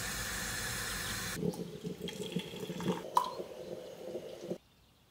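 Stovetop moka pot hissing steadily on a gas burner, then coffee poured from the pot into two ceramic mugs, with a clink a little past halfway. The sound cuts off suddenly near the end.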